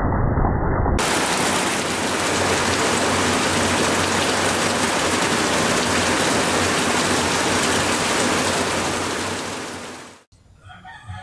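Steady heavy rain, a dense even hiss. It takes over from a duller, muffled noise about a second in and cuts off abruptly near the end. A brief pitched call follows the cut.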